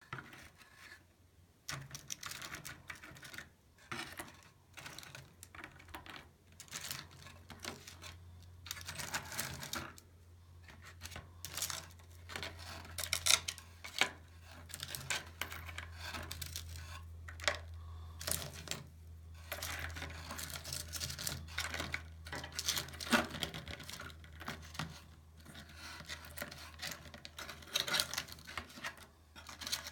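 Hard mineral specimens clicking, knocking and scraping against one another as they are picked up and set down by hand. A steady low hum runs underneath from about two seconds in.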